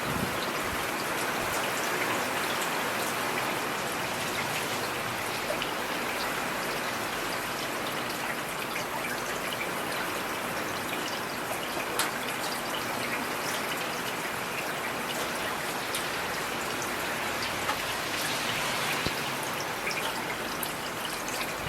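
Steady rain falling on a street, with scattered individual drops ticking through an even hiss.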